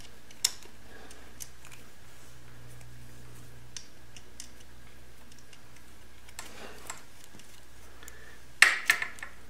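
Small metallic clicks and handling noise as the starter cable's ring terminal and nut are fitted by hand onto the starter solenoid stud of a 1973 Honda CB750: one sharp click about half a second in, a few faint ticks, and a quick run of clicks near the end. A steady low hum underlies it.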